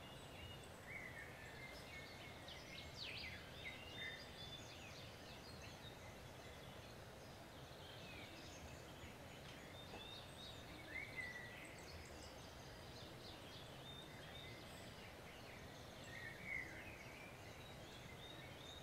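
Quiet ambience: faint birds chirping now and then over a steady low hiss.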